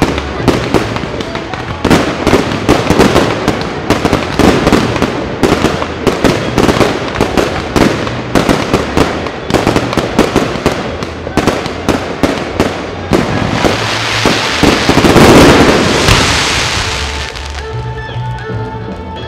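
Fireworks display: a fast, irregular run of firework bangs, with a denser rush of noise that swells to the loudest point about fifteen seconds in and then fades. Music plays underneath, its notes clearest near the end.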